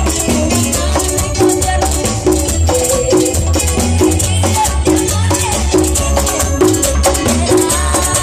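Latin dance orchestra playing an instrumental passage: a pulsing bass line, a melody line in the middle range and steady shaker percussion keeping time.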